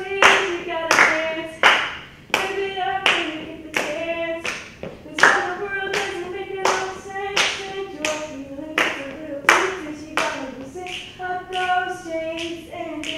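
Hand claps keeping a steady beat, about three every two seconds, under unaccompanied singing of a sustained melody.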